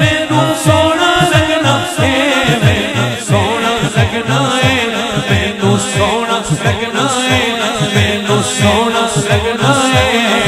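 A man singing a naat, an Urdu devotional song, into a microphone through a PA system, over a steady rhythm of deep low beats.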